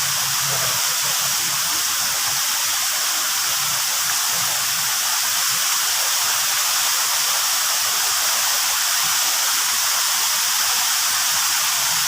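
Waterfall pouring steadily: a constant, even hiss of falling water and spray.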